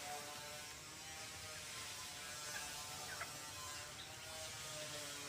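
Muscovy ducks and ducklings feeding on rice bran: a faint, steady buzzing chatter of bills working through the feed, with a few faint short peeps around the middle.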